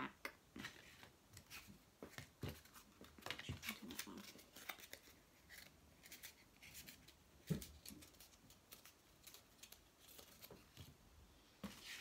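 Paper cut-out leaves handled and bent by hand: faint crinkling and rustling with scattered light clicks.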